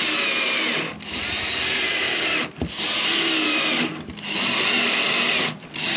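Power drill driving screws through a steel gate hinge into plywood. The drill runs in about five stretches of a second or so each, with short stops between, and its pitch slides up and down as the motor speed changes.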